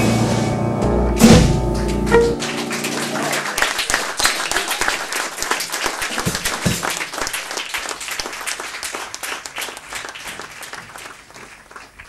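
A jazz piano trio's final chord of piano, double bass and drums rings out, with a sharp hit about a second in. About two seconds in the music stops and the audience applauds, the clapping fading away gradually.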